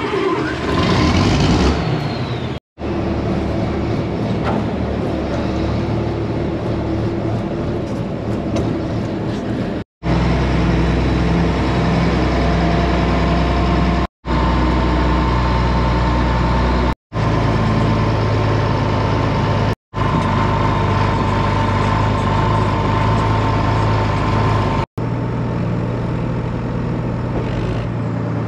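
John Deere open-station tractor engine running under way, loudest and rising in the first couple of seconds, then steady. The sound drops out suddenly for a split second about six times.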